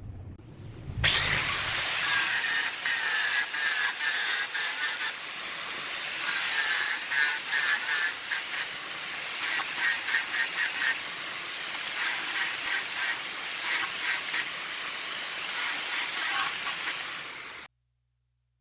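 Work at a wood lathe: a loud, steady hiss with a faint wavering tone, starting suddenly about a second in and cutting off abruptly near the end.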